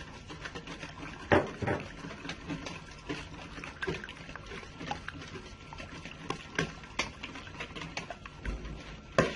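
Lemon juice being added to a bowl of beaten eggs: small liquid splashes with irregular clinks and knocks, the sharpest about a second in and near the end.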